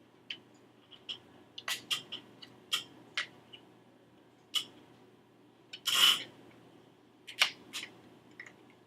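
Scattered sharp plastic-and-metal clicks and taps from a DDR3 laptop RAM module being fitted into its motherboard slot, with a short scrape about six seconds in.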